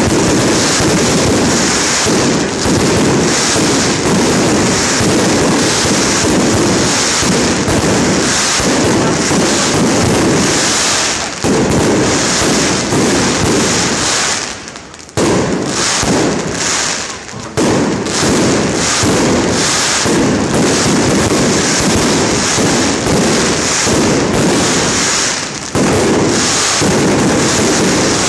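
Aerial fireworks display: shells bursting overhead in rapid, near-continuous bangs and crackles, with a short lull about halfway through.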